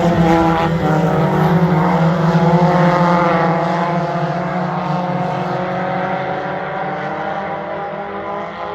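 Hornet-class race cars running hard around a dirt oval: several engines droning together at high revs, growing gradually fainter as the pack moves away.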